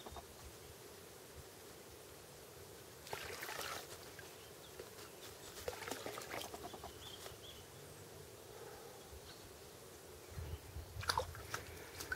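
Faint splashing and trickling of water as a small cup dips into a shallow ditch and is poured out. There is a louder splash about three seconds in and a few more soft splashes near the end.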